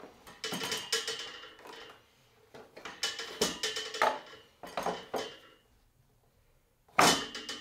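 Router base plate, with the router hanging beneath it, clattering and scraping against the router table's opening in several bouts as it is worked in, with one sharp clunk near the end, the loudest. The plate is a tight fit and won't simply drop into place.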